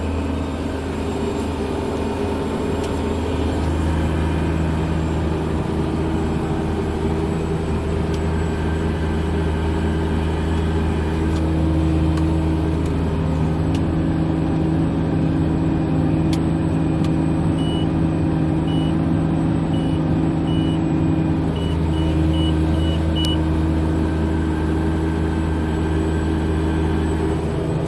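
Case IH Quadtrac 535 tractor's diesel engine running steadily under load while ploughing. About two-thirds of the way through comes a run of short, high electronic beeps.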